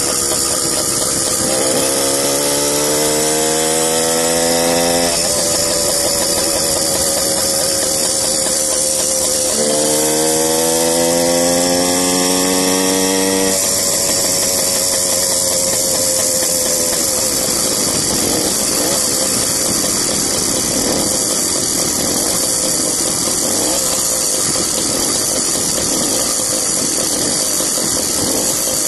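Two-stroke YD100 bicycle engine kit running under a rider: it revs up twice with a rising pitch, about two and ten seconds in, each time dropping back suddenly after a few seconds, then runs on steadily. Wind rushes over the microphone throughout.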